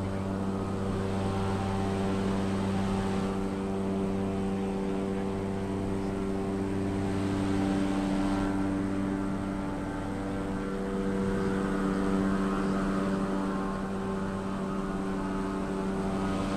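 Cessna's propeller engine running with a steady drone, its pitch holding level and its loudness swelling and easing a little.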